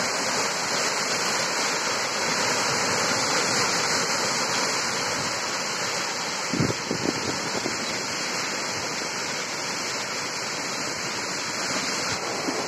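A muddy river in flood, its fast, turbulent water rushing past the bank in a steady wash of noise. A few brief soft knocks come about halfway through.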